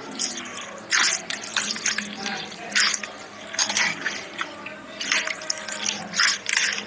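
Slime being squished, giving irregular wet clicks and pops, about one or two a second.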